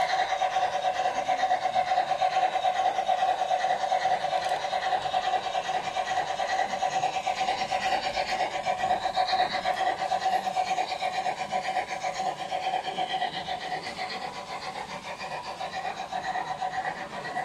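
LGB garden-scale model trains running on the layout: a steady rasping mechanical drone from the locomotives' motors and gears and the wheels on the track, easing off a little near the end.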